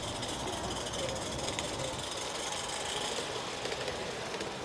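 A 16mm-scale garden railway train running along the track, a steady, fairly quiet noise.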